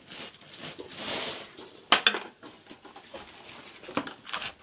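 Loose metal ammunition cartridges clinking and clicking as they are handled and dropped, with sharper clicks about two seconds in and near the end.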